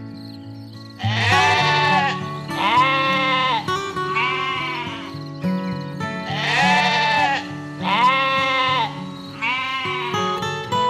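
An animal bleating six times, in two runs of three. Each call lasts about a second, its pitch rising then falling. Background music with sustained tones runs underneath.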